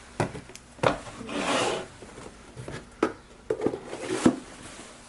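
Handling of paper manuals: a few sharp knocks and taps as books and covers are set down and moved, with a longer swish of paper or cover rubbing about a second and a half in.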